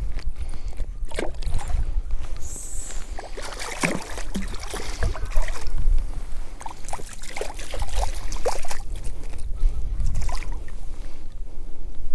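Water splashing and sloshing as a sea trout is handled and released in shallow water, in short irregular splashes, over a steady low rumble of wind on the microphone.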